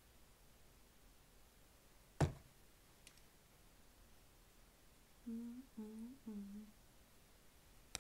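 A single sharp knock about two seconds in, as the mayonnaise jar is set down on the table, then a woman humming three short notes between about five and seven seconds in.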